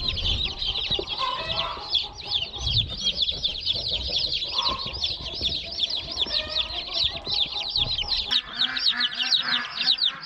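A brood of newly hatched chicks peeping together, many high, short, falling peeps overlapping without a break. A lower, repeated call joins about eight seconds in.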